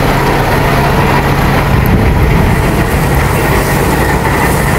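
Heavy truck's engine running close by: a loud, steady drone with a constant low hum.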